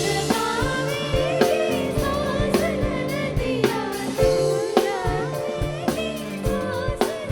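Live devotional bhajan music: an ornamented melody with sliding pitch bends over held chords and a steady drum beat, with singing.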